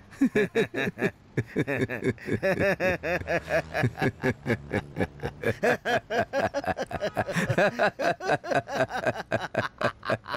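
Two men laughing hard together: a long, unbroken run of rapid 'ha-ha' pulses, several a second.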